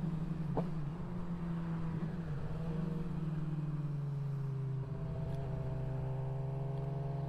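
Suzuki GSX-R inline-four sportbike engine heard from the rider's seat at a steady cruise, over wind rush. The engine note sinks a little in pitch partway through, with a brief dip about five seconds in.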